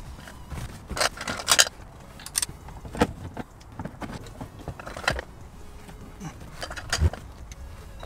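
Overhead console trim and small parts being handled and fitted back together: scattered clicks, knocks and a jingling rattle. There is a quick run of rattles about a second in, then single knocks every couple of seconds.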